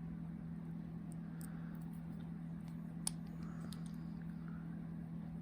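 Faint small metallic clicks and ticks of a lock pick working the pins inside a padlock keyway, the sharpest about three seconds in, over a steady low hum.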